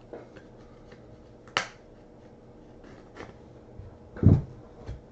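1978 Topps baseball cards being handled and flipped through by hand: a few sharp clicks of card stock, the sharpest about a second and a half in, and a louder knock with a low thud about four seconds in.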